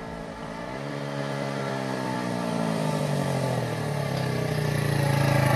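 Motorcycle engine running as the bike approaches, growing steadily louder, with a change in engine pitch about a second in.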